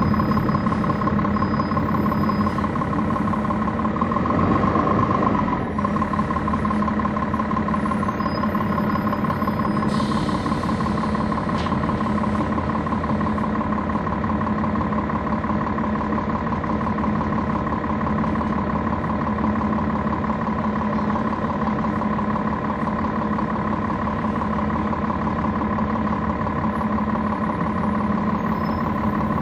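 Inside a 2011 NABI 40-SFW transit bus, its Cummins ISL9 diesel engine running at a steady pitch with the HVAC off. A short hiss comes about ten seconds in.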